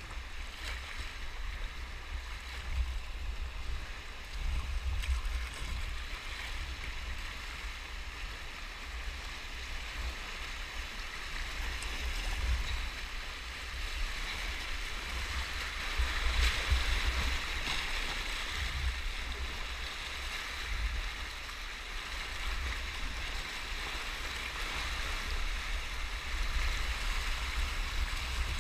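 Rushing, churning tidal white water around a sea kayak, with wind buffeting the microphone in low gusts. The water hiss grows louder about halfway through as the kayak runs through the rough water under the bridge arch.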